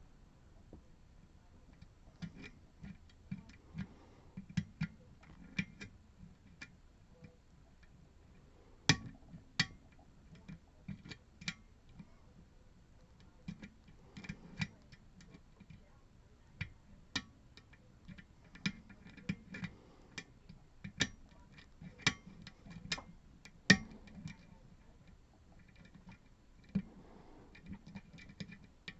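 Lock pick and tension wrench working the pins inside a Goal P lock during single-pin picking: irregular small metallic clicks and ticks as pins are lifted and set, with a few sharper clicks about 9 seconds in and near 21 and 24 seconds.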